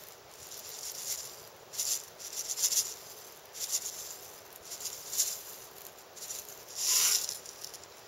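Liquid poured from a plastic bottle into a steel camping pot, coming out in several short splashing bursts, the loudest near the end.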